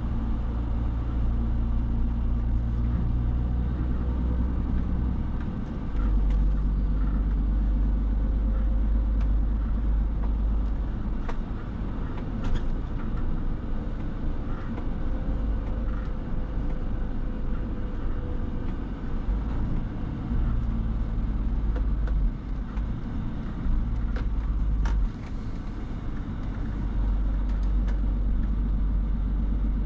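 Scania Super 500 S truck's 13-litre six-cylinder diesel engine running under way, heard from inside the cab along with road noise. The engine note steps up about six seconds in and drops back twice in the later part before rising again.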